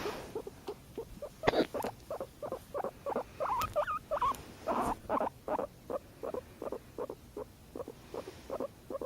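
Pet guinea pig making a rapid series of short calls, about four a second, some wavering in pitch. There is a single sharp, louder sound about a second and a half in.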